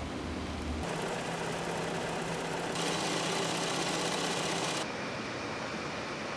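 Wool-processing mill machinery running with a steady mechanical hum and whir. The sound changes abruptly about a second in, near three seconds and near five seconds, as one machine's sound gives way to another's.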